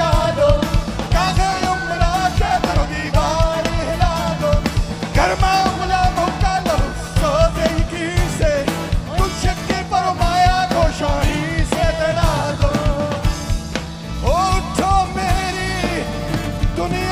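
Live rock band playing through a PA: drum kit, electric guitars and bass, with a sung melody line over them.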